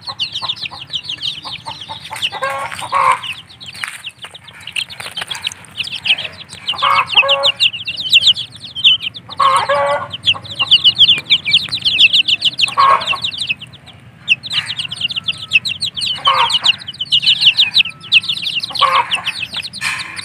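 A flock of young kampung (village) chickens peeping rapidly and continuously in high notes, with a louder, lower call breaking in every two to three seconds.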